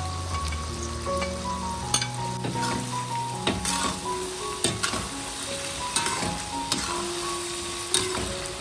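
Stir-frying: food sizzling in hot oil in a wok or pan as it is stirred, with several sharp knocks and scrapes of the spatula against the pan. Background music plays under it.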